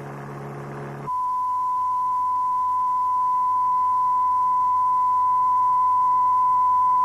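A low buzzing demonstration tone with many overtones for about the first second. It gives way to a steady pure test tone near 1 kHz, a reference pitch for training the ear to judge vibration and noise frequencies, which grows slightly louder.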